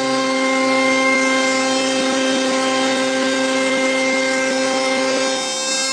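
A CNC router spindle with a profile cutter milling the edge of a solid-wood workpiece: a steady whine with cutting noise, shifting slightly near the end.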